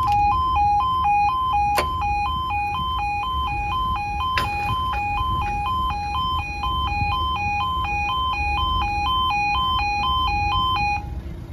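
Level crossing yodel alarm, a two-tone warble alternating about twice a second, sounding while the barriers rise and cutting off near the end. A sharp click comes about two seconds in.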